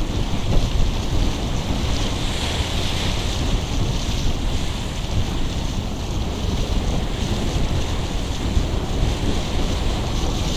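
Wind buffeting the microphone in a steady, fluttering low rumble over the hiss of choppy sea rushing past the hull of a pleasure boat under way.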